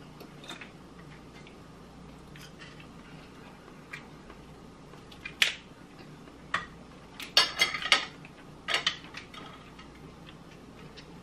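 Cooked lobster being picked apart by hand at a dinner table: scattered small clicks and crackles of shell and dishes, with a louder run of crackling clatter about seven to nine seconds in.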